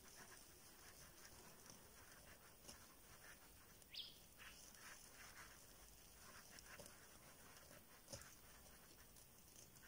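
Near silence: room tone with a few faint ticks and one brief rising chirp about four seconds in.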